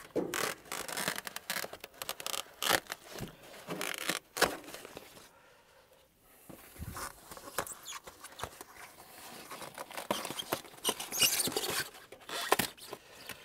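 Foam insulation being pulled and peeled off a heat pump's coaxial heat exchanger and refrigerant lines by hand: irregular scraping, rubbing and crackling, with a quieter pause about halfway through.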